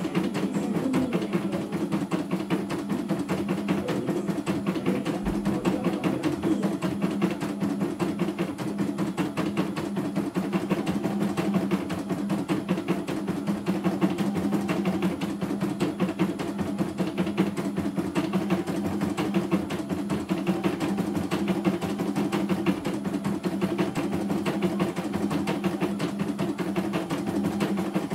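CNY E900 computerised embroidery machine stitching a design, its needle running at a steady fast rhythm over a steady low tone.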